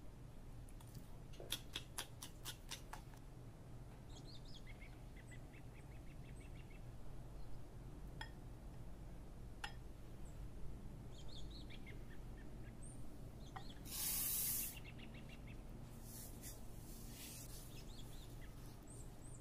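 Wire whisk clicking and scraping against a glass mixing bowl as batter is stirred, with faint bird chirps in the background. A short hiss comes about three-quarters of the way through, then more whisk clicks.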